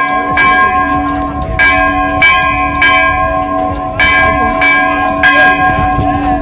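Temple bells struck over and over, a new strike roughly every half second with a couple of short pauses, each strike ringing on so the tones overlap into a steady hum.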